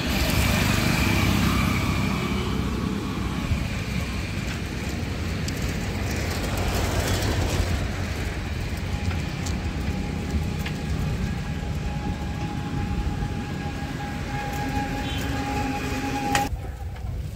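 Road traffic passing: a continuous rumble of vehicle engines and tyres, with a steady whine from about halfway through. The sound cuts off abruptly near the end.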